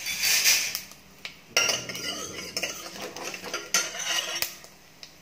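Steel ladle stirring whole spices in hot oil in a stainless steel pressure cooker, scraping and clinking against the pot's base. A long scrape comes in the first second, then many quick clinks and scrapes from about a second and a half in.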